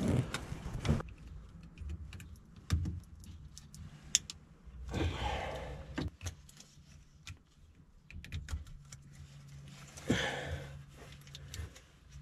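Plastic wiring-harness connectors on a Bobcat skid steer being handled and plugged together: scattered small clicks and rattles, with two short rustles about five and ten seconds in.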